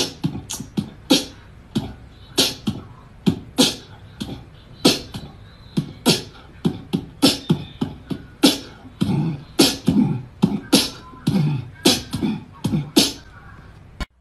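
A rhythmic percussive beat of sharp clicks and low thumps, roughly three every two seconds, like beatboxing. It stops abruptly near the end.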